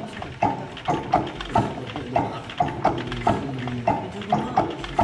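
Old stationary engine running slowly, with sharp knocks coming about twice a second in a slightly uneven rhythm over a low rumble.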